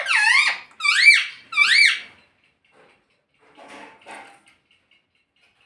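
Pet ringneck parakeet giving three shrill calls in quick succession, each rising then falling in pitch, followed a couple of seconds later by two faint scuffs.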